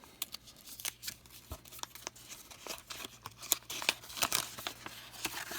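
Quick irregular clicks and crinkles of a trading-card box being opened by hand, its plastic wrap and cardboard torn and handled.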